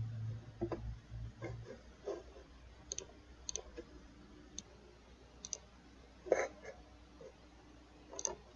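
Irregular, scattered clicks of a computer mouse and keyboard, faint, the loudest about six seconds in, with a low hum during the first second and a half.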